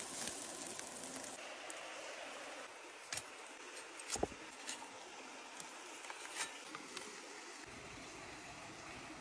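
Steady rush of a small forest stream and waterfall, with a few sharp clicks and knocks of wooden skewers and a knife being handled on a wooden board, the loudest about four seconds in.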